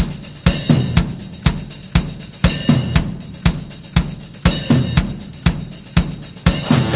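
Background music: a drum kit playing a steady rock beat on its own, hitting about twice a second.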